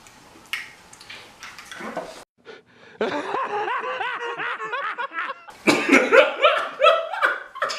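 Men laughing hard in quick bursts, starting about three seconds in and getting louder near the end; the first stretch is quiet apart from a few soft knocks.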